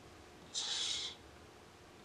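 A thin metal spatula making one scraping stroke across a wooden board as it spreads glue along a crack, a short hiss of about half a second starting about half a second in.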